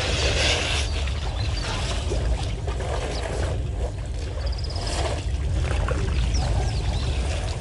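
African elephants wading in a waterhole, water splashing and sloshing in bursts: about a second in, around three seconds and around five seconds. Short bird chirps come between, over a steady low hum.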